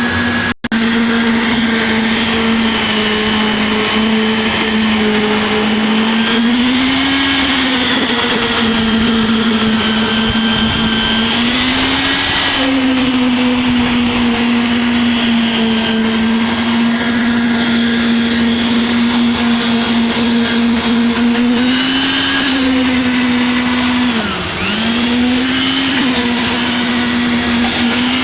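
A power tool's electric motor running steadily at high speed, its pitch dipping or rising briefly a few times as the load on it changes.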